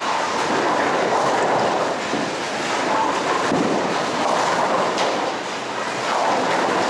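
Bowling ball rolling down a wooden lane with a steady rumble, over the general din of a bowling alley.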